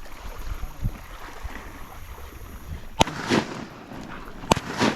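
Two sharp slaps on the water about a second and a half apart, each followed by a brief splash: a downed teal flopping in the marsh. Wind rumbles on the microphone throughout.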